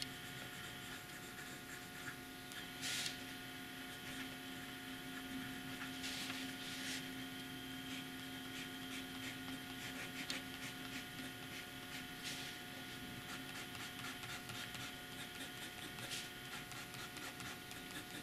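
Faint scratching of a broad steel fountain-pen nib (Leonardo Momento Zero) writing on grid notebook paper, in separate short strokes, over a steady low hum that stops about fourteen seconds in.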